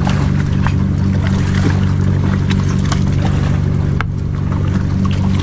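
A boat's motor running steadily at a low, even drone, with irregular splashes and knocks as a hooked fish thrashes at the surface and is gaffed alongside the hull; one sharp knock about four seconds in.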